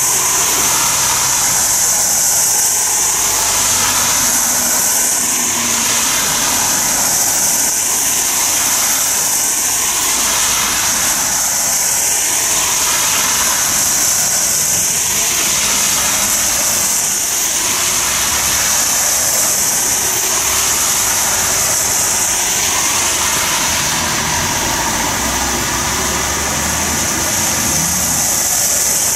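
Road traffic in the rain: a light flatbed tow truck and cars drive past, engines running and tyres hissing on the wet road, over a steady high hiss of rain.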